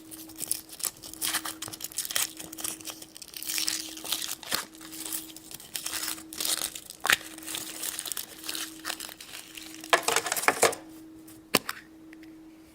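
Foil wrapper of a chocolate surprise egg crinkling and tearing as it is peeled off by hand, followed near the end by a few sharp clicks and snaps.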